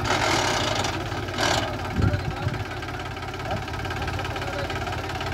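Mahindra 265 tractor's diesel engine running steadily under heavy load, straining to pull a fully loaded trolley up out of a trench. A loud rushing noise covers the first second and comes back briefly about a second and a half in.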